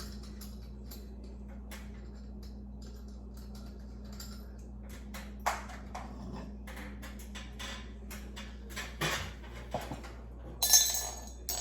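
Small hard parts of a ceiling light fixture clicking and clinking as it is taken down by hand, with a louder jangle of loose pieces near the end. A steady low hum runs underneath.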